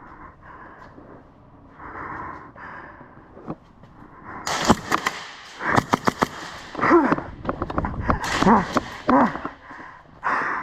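Airsoft guns firing in rapid bursts of sharp cracks, starting about four and a half seconds in, with a player's heavy breathing and grunts between them.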